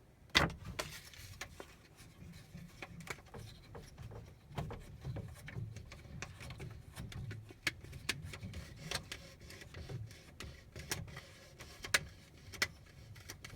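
Faint, irregular small clicks and rubbing from hands adjusting a 3D printer's platform calibration screws, with paper shifting under the print head.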